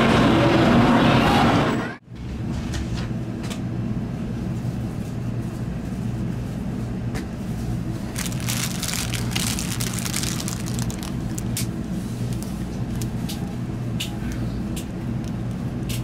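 Steady low rumble of a Shinkansen passenger car's interior, with scattered faint clicks and rattles. It is preceded by about two seconds of loud station-platform noise that cuts off abruptly.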